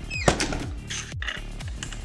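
Background music with a steady beat, and a single sharp click about a third of a second in.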